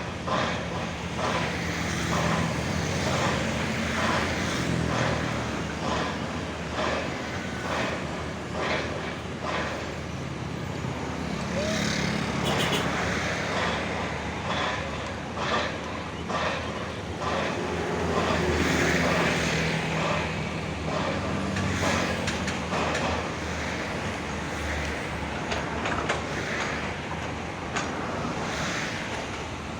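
Diesel engine of a Hyundai excavator fitted with a hydraulic rock breaker, running under load with its pitch shifting up and down, with irregular knocks and clanks throughout.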